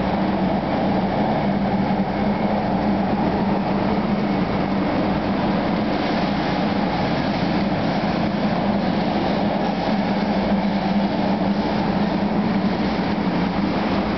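Steam excursion train's passenger cars rolling past, a steady rumble of steel wheels on the rails with a low hum underneath.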